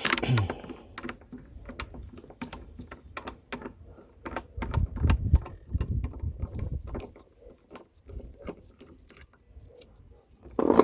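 Irregular light metallic clicks and clinks as the loosened top nut is worked off a front strut held in coil-spring compressors, with a low rumbling knock about halfway through.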